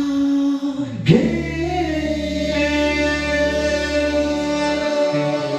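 Vocal music: a man singing long held notes into a microphone, with a sliding note about a second in, over backing music with a bass line.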